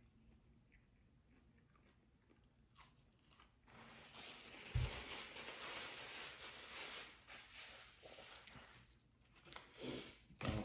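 A person chewing and crunching a mouthful of McDonald's fast food close to the microphone, starting after a few quiet seconds and going on for about five seconds, with a brief low thump early in the chewing.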